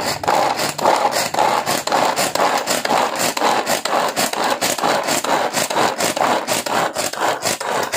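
Small food chopper chopping pieces of ginger: the spinning blades throw the chunks against the clear jar in a loud, rapid, unbroken clatter.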